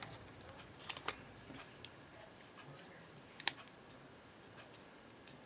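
Faint handling sounds of tape and paper being worked by hand, with a couple of small clicks about a second in and another about three and a half seconds in.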